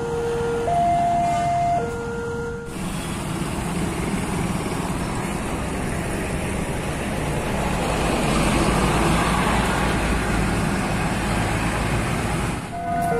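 A railway level-crossing warning alarm alternating between a low and a high tone, each held about a second, cuts off after about three seconds. A coach bus then passes close by, its engine and tyres giving a steady rumble that swells near the middle. The two-tone crossing alarm returns right at the end.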